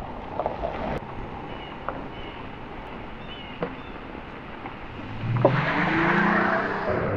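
Car driving on a dirt road. At first it is quiet with a few light clicks. About five seconds in, the engine note climbs as it accelerates, and a loud rush of tyres over gravel comes in with it, settling to a steady hum near the end.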